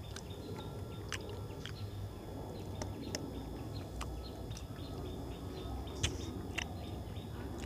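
Birds chirping in short, sharp notes over close eating sounds: a man chewing and working rice and fish curry by hand on a steel plate.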